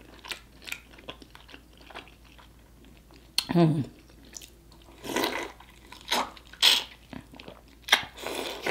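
Close-miked mouth sounds of eating sauce-covered king crab: wet smacking, sucking and chewing in short loud bursts between small clicks, with a brief hummed 'mm' falling in pitch about three and a half seconds in.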